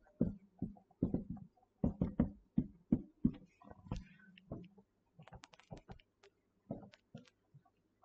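Dry-erase marker writing on a whiteboard: an irregular run of short taps and strokes as letters are written out.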